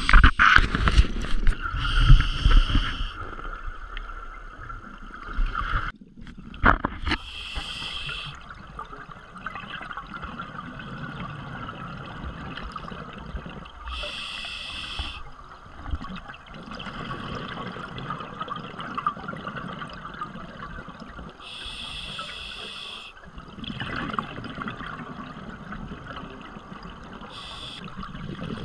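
Scuba diver breathing through a regulator underwater: a short hiss of inhalation about every six seconds, each followed by a longer bubbling rumble of exhaled air. A few knocks come near the start and about six seconds in.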